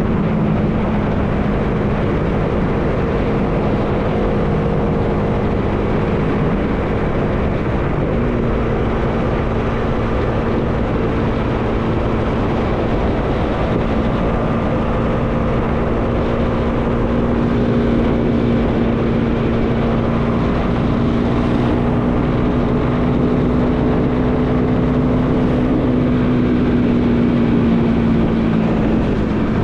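Bajaj Dominar 400's single-cylinder engine running at a steady cruising speed, with wind rushing over the microphone. The engine note drops away briefly about eight seconds in, then holds steady again, and sinks slightly in pitch near the end.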